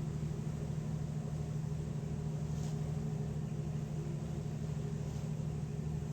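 A passenger ferry's diesel engine running steadily: an even low drone with a throbbing pulse underneath.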